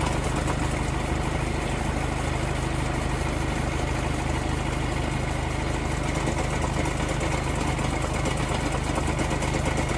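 Volkswagen Golf engine idling steadily after a cold start, with a clunking rattle running through it; the fault is in the flywheel, which is replaced.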